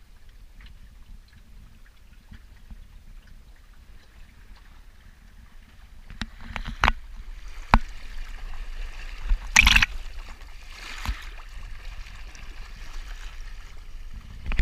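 Water rushing and splashing along the wooden hull of a Wayfarer sailing dinghy under way under sail, over a low steady rumble. About halfway through it grows louder, with several sharp slaps of water against the bow.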